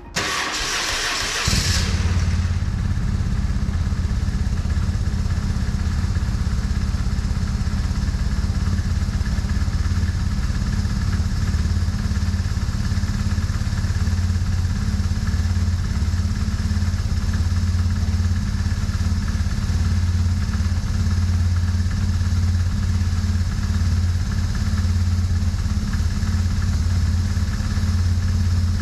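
BMW R1150R's boxer twin engine starting up: a brief whirr for about a second and a half, then the engine catches and idles steadily.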